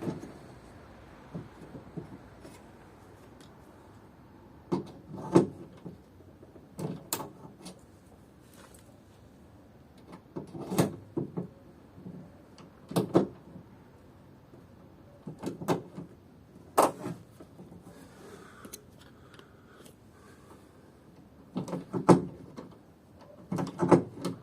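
Hand pop-rivet gun being squeezed to set a rivet fixing the window regulator to the car door frame: sharp metallic clicks and clacks in small clusters every couple of seconds, with one sharper crack about two-thirds of the way through.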